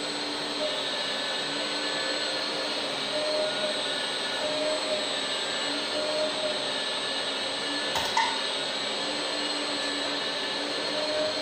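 Electric hydraulic pump of a 1/14-scale LESU Komatsu PC360 RC excavator whirring steadily, its tone shifting slightly as the hydraulics are worked. A single sharp click about eight seconds in.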